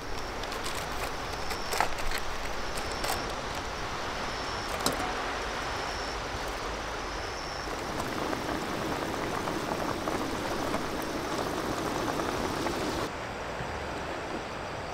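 Gas camp stove burning with a steady hiss, with clicks and clinks of metal cookware in the first few seconds. From about eight seconds a pot of cabbage simmers on the burner and the sound grows fuller, then it drops suddenly near the end.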